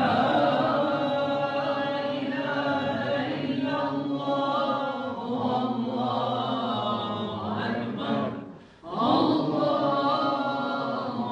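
Islamic devotional chanting by a male voice, in long drawn-out melodic phrases that waver in pitch, with a short break for breath about eight seconds in.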